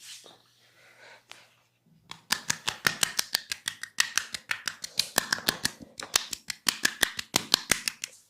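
A barber's hands making a rapid run of sharp snapping cracks during a head massage, about five a second, starting about two seconds in and going on for some six seconds.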